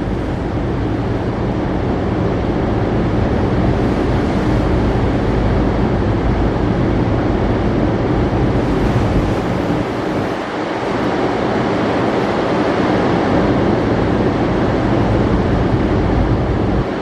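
Wind buffeting the microphone aboard a cargo ship at sea, over a steady low hum from the ship's machinery; the wind eases briefly about ten seconds in.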